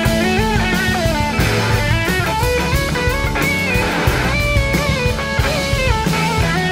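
Live rock band: an electric slide guitar solo on a red Gibson SG, the lead notes gliding and stepping between pitches over drum kit and bass.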